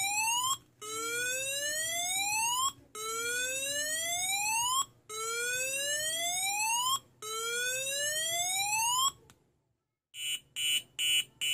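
M3766 alarm tone IC driving a small loudspeaker in its mode 3 siren tone: a rising sweep that climbs for about two seconds, cuts off and starts again, repeated about five times. It stops about nine seconds in, and after a short pause the mode 2 tone starts near the end: fast pulsing beeps, about two a second.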